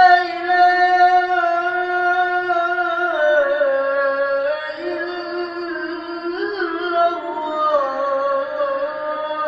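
A boy's voice chanting the adhan, the Islamic call to prayer, in long held notes. The pitch steps down about a third of the way in and back up again, with quick ornamental turns in the later notes.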